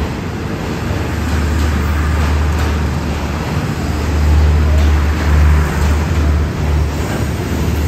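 Diesel-electric locomotive 5201, an SRT CSR Qishuyan unit, running close by with a loud, steady low engine drone that swells for a moment about four to five seconds in.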